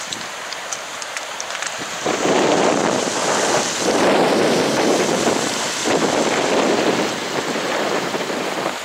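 Muddy hail meltwater rushing across a flooded road. The sound is a steady rush, quieter with faint ticks for the first two seconds, then much louder and fuller.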